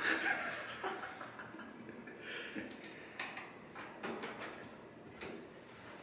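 A handful of soft, irregular knocks and clicks over faint room hiss, the loudest right at the start.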